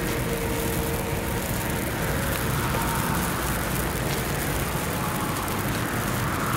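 A small F1 spark-fountain tube burning with a steady hiss and fine crackle, over a steady low rumble.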